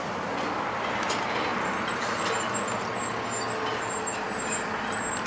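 Steady outdoor background noise with a faint, even engine-like hum; no distinct events.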